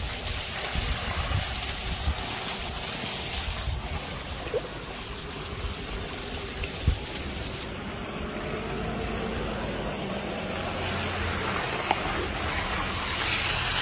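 Water trickling and sloshing in a galvanized metal stock tank with a spotted hyena bathing in it, over a steady low rumble.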